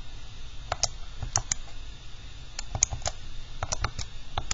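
Plastic keys of a TI-84 Plus graphing calculator being pressed one at a time to enter a function: about a dozen light, irregular clicks.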